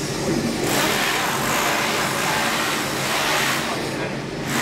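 Wall rendering machine running: its motor gives a steady low hum, with a hissing, scraping noise from about a second in that drops away near the end.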